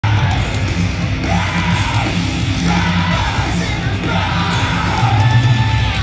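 Live rock band playing loudly, with a singer yelling long held notes over heavy bass and drums.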